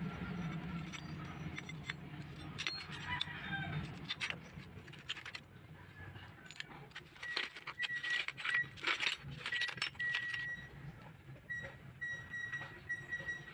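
Metal pipe-wrench parts clinking and rattling as they are handled, in a string of short irregular clicks.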